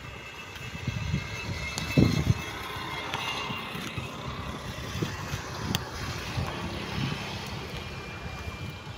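Motorcycle traffic passing on an open road, with gusts of wind buffeting the microphone.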